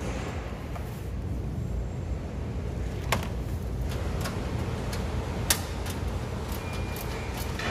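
Steady low background rumble with two sharp metallic clicks, about three and five and a half seconds in, and a few fainter ticks, as a hand tool is worked against the steel mounting bracket of a monitor enclosure.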